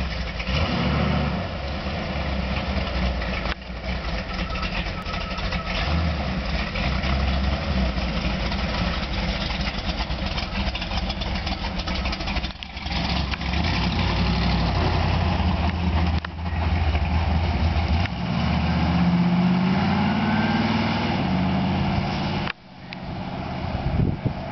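1968 Camaro's 454 cubic-inch big-block V8 running as the car pulls out and drives off on its first road run, the revs rising for a few seconds near the end. The sound breaks off abruptly a few times.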